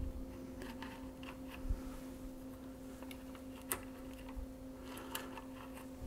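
Faint, scattered small clicks of a screwdriver working a stiff screw on a CPU socket's metal retention frame, the screw hard to get threaded, over a steady low electrical hum.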